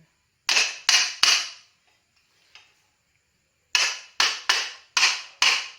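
Sharp hammer blows on metal bike parts: three quick strikes, a pause, then five more, each with a short ringing tail.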